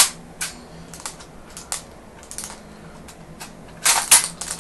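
Clicks and rattles of airsoft BBs being loaded into a magazine: a few single clicks spaced out, then a quick cluster of louder clicks about four seconds in.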